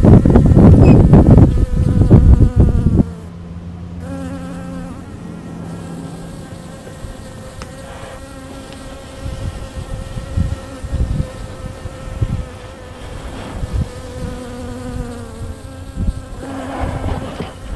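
Yellow jackets buzzing around the camera at a smoked ground nest: several overlapping steady hums of different pitch that swell and fade as the wasps pass. For the first three seconds a loud rushing noise covers everything, then cuts off.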